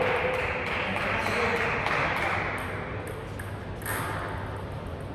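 Celluloid-type table tennis ball bouncing: a sharp tap near the end, over a fading wash of voices and hall noise after the rally.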